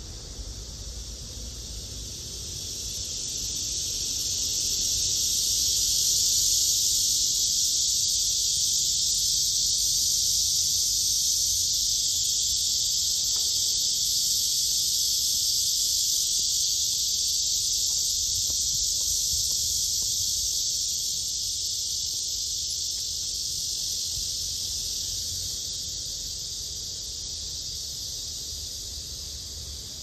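Male black cicada (Cryptotympana atrata) buzzing: one continuous high, hissing buzz that swells over the first few seconds, holds steady, then slowly fades toward the end.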